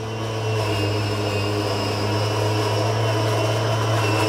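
Einhell GE-CM 18/30 Li cordless lawn mower running while cutting grass: its brushless electric motor and spinning blade make a steady hum with a faint high whine, not shrill and not very loud. The sound grows a little louder as the mower comes closer.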